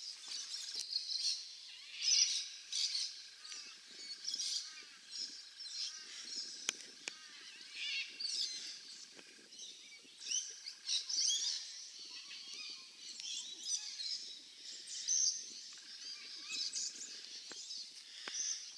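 Wild birds chirping and calling, many short high calls overlapping, with a few faint clicks.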